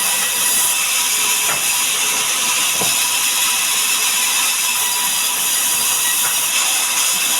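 Sawmill saw running steadily through a mahogany log: a loud, even mechanical noise with a high-pitched whine held throughout and a few faint knocks.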